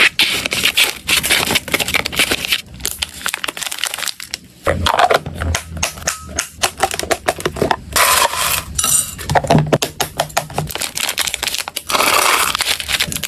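Close-miked clicking and tapping of dry hamster snacks and hard plastic: milk biscuit sticks handled with chopsticks and a latched plastic food box being handled. Near the end, small round biscuits are poured in a rattling rush into a plastic cup.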